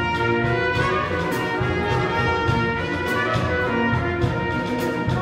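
Chamber orchestra playing, with the brass, French horns and trumpet, to the fore over strings, and drum strokes recurring through the music.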